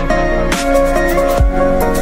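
Electronic background music: sustained synth notes over drum hits.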